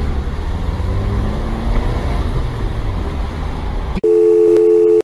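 Steady low road and engine rumble heard inside a moving car. About four seconds in, a loud, steady two-note electronic beep blanks out the car noise completely for about a second: an edited-in tone laid over the sound track.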